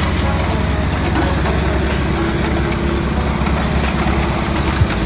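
Heavy truck engine running steadily with a low, pulsing rumble; near the end its note changes abruptly to a lower, rougher rumble.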